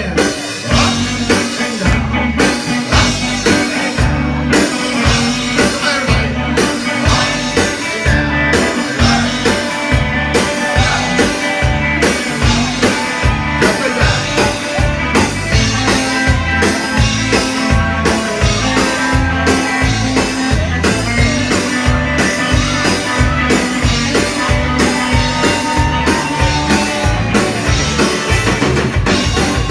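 Live rock band playing: drum kit and bass keeping a steady beat of about two thumps a second under electric guitar, with some singing.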